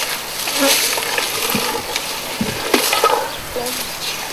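Flies and other insects buzzing steadily, with scattered crackling and rustling.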